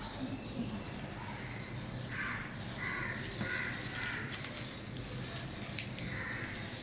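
Crows cawing, a quick run of several caws about two seconds in, with a sharp click near the end.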